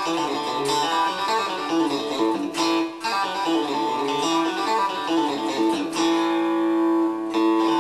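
Telecaster-style electric guitar played in a country chicken-pickin' style: a fast run of picked and pulled-off notes, open strings ringing against fretted notes, with one note held for about a second near the end.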